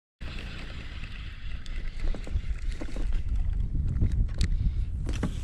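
Wind rumbling on the microphone and water lapping against a kayak on choppy water, starting abruptly just after the start, with scattered light clicks and taps from a spinning rod and reel being handled.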